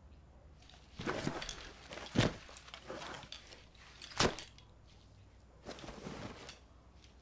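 A cardboard box being handled and opened: scraping and rustling of cardboard, with two sharp knocks about two seconds in and about four seconds in.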